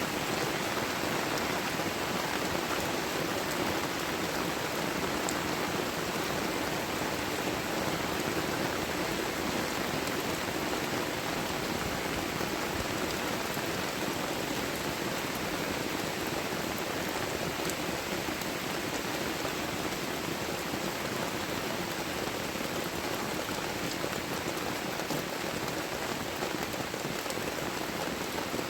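Heavy tropical rain falling steadily, a dense, even hiss of raindrops.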